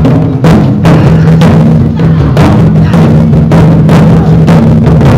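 Taiko drums beating a steady rhythm, about two strong beats a second, over a continuous low drone.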